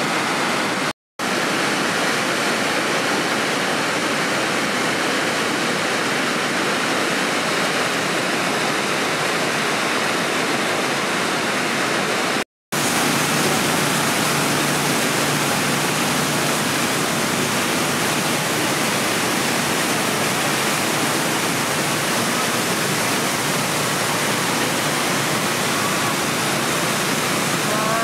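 Shifen Waterfall in heavy flow: a steady, dense rush of falling water plunging into its pool. The sound cuts out completely for an instant twice, about a second in and again near halfway.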